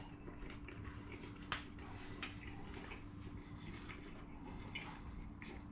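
A man chewing a mouthful of doner kebab meat in pitta bread: faint wet mouth clicks and smacks at irregular moments, the clearest about one and a half seconds in, over a steady low hum.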